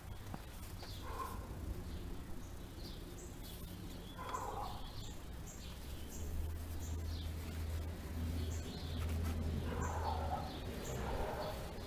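Birds calling outdoors: short high chirps repeat throughout, with a few louder, lower calls. A low steady hum rises under them about halfway through and fades near the end.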